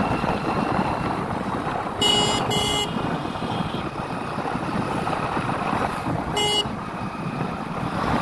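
Steady wind and engine noise of a motorcycle riding along a road, with a horn beeping twice in quick succession about two seconds in and once more about six and a half seconds in.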